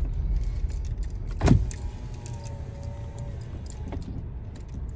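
Low, steady engine and road rumble inside a slowly moving Toyota car, with scattered light clicks. A single sharp thump stands out about a second and a half in.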